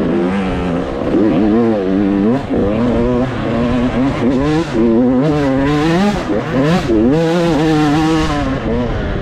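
Dirt bike engine revving up and down over and over, its pitch rising and falling about once a second as the throttle is opened and closed through the race.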